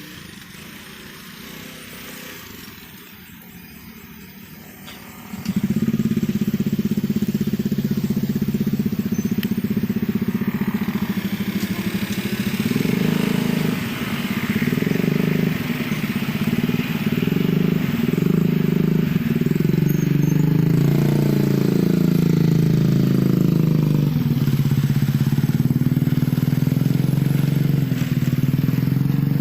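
Motorcycle engine coming in suddenly about five seconds in, then running loudly with its pitch rising and falling as it is revved.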